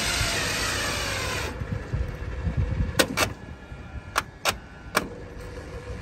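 Coffee vending machine dispensing a drink into a paper cup: a steady hiss of pouring over a low hum that stops about a second and a half in, then several sharp clicks.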